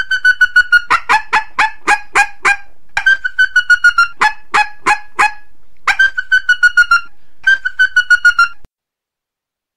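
Female coyote estrus chirps, a mating-season call: rapid high yips about three a second, mixed with short drawn-out whines. The chirping cuts off abruptly near the end.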